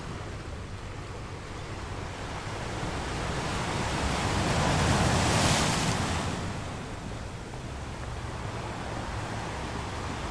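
Muffled rush of water picked up by a GoPro held underwater, swelling to a louder, hissier peak about halfway through and then settling back to a low steady wash.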